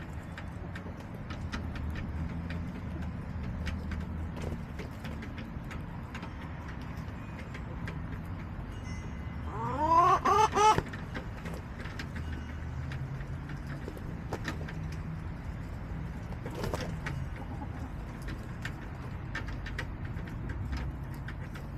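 Backyard chickens: a hen gives one loud call of about three quick notes a little before halfway, and a fainter call comes later. Light clicks are scattered throughout over a steady low rumble.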